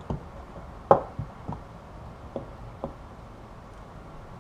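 Wire cutters snipping short pieces of tinned copper wire, a handful of sharp clicks and light knocks, the loudest about a second in.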